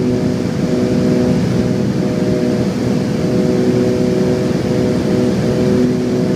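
Twin piston engines and propellers of a Beechcraft 58 Baron heard from inside the cabin in flight, a loud steady drone with several held tones over a rushing rumble, some tones swelling and fading.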